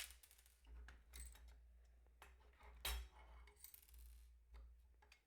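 Faint clicks and light metallic clinks as a small metal device case is opened and its parts handled, several scattered taps with the loudest about three seconds in.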